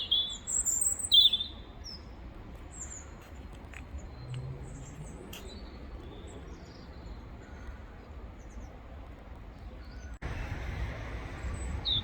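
Robin singing: a few loud, high chirping notes in the first second and a half, then fainter scattered notes over a steady background hiss. The hiss gets suddenly louder about ten seconds in.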